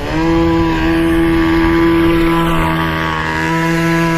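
Two-stroke petrol engine of a 1/5-scale gas RC buggy revving high and held at a steady pitch, after a brief dip right at the start.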